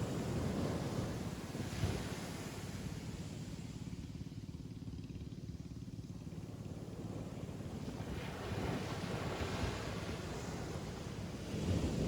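Ocean waves breaking on a beach and washing back. The surf swells and eases in a slow rhythm: louder in the first couple of seconds, dying down in the middle, and building again from about eight seconds in to a fresh break near the end.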